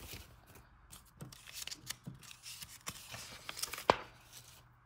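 Stamp album pages being turned and handled: paper and a clear plastic sheet rustling, with scattered small clicks and one sharper click about four seconds in.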